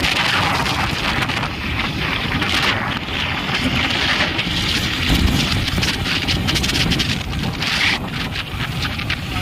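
Wind buffeting the microphone on a moving motorcycle, over the low rumble of the bike's engine and tyres on the road.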